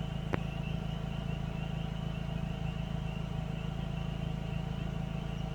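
Car engine idling steadily, with a faint high pulsing chirr repeating about three times a second and a single sharp click near the start.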